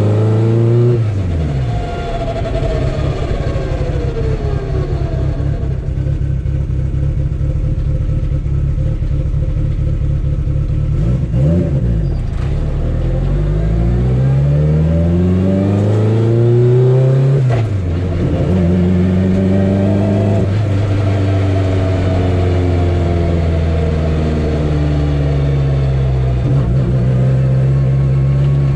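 Turbocharged 4G63 four-cylinder engine of a dog-box-equipped drag car on a test drive, rising and falling in pitch as it speeds up and slows, with sharp pitch drops at gear changes about a second in and about two-thirds of the way through. The drivetrain sounds healthy, with no odd noises beyond the typical dog-box gear noise.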